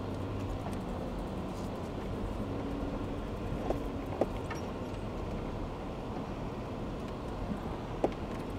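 A car driving on a sandy dirt track, heard from inside the cabin: a steady low engine and road rumble, with a few light knocks.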